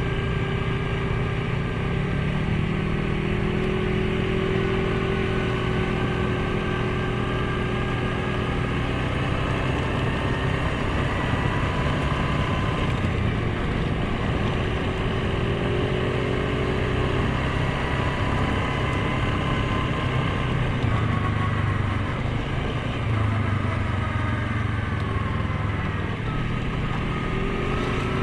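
Suzuki KingQuad 750 ATV's single-cylinder engine running under way, its pitch rising and falling as the throttle opens and closes.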